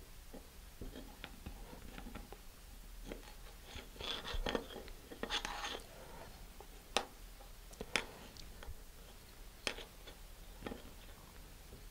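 Faint handling sounds of a shock cord being knotted onto a small plastic nose cone's loop: soft rustling about four to six seconds in, then a few sharp clicks.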